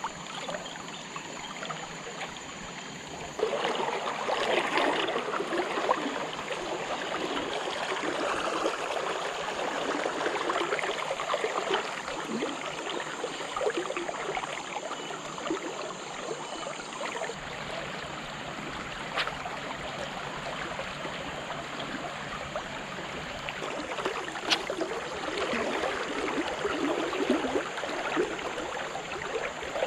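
Shallow river water flowing steadily close to the microphone, growing louder a few seconds in.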